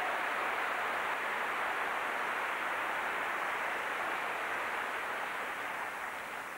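Tennis crowd applauding: steady, dense clapping that eases off a little near the end.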